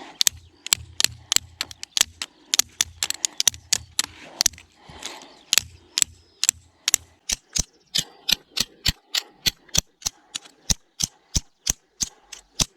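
Folding knife blade struck repeatedly against a hard material during an edge test: sharp strikes, irregular at first, then steady at about three a second from about halfway through.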